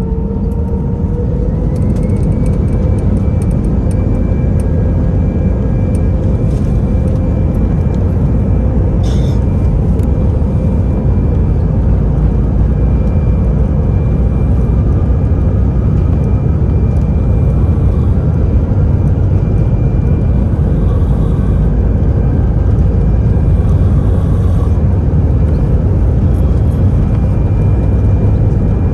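A vehicle running steadily: a loud, even low rumble with a faint whine that rises slightly in pitch about a second in and then holds steady.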